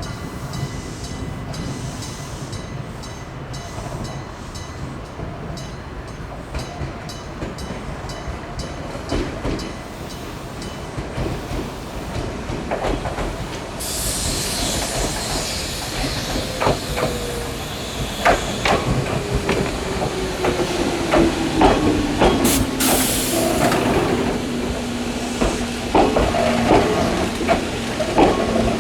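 A level-crossing electric gong bell strikes in a quick, regular rhythm. About halfway through, a Kumamoto Electric Railway train rolls over the crossing with a rising hiss and sharp clacks of its wheels over the rail joints, while a motor whine falls slowly in pitch.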